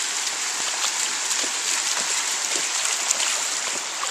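Shallow water rushing steadily over a concrete low-water crossing, with light splashes as huskies' paws wade through it.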